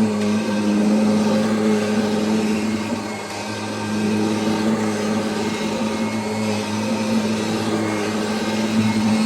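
Kirby G5 upright vacuum cleaner running steadily, a motor hum over a wide rush of airflow, dipping a little in loudness about three seconds in.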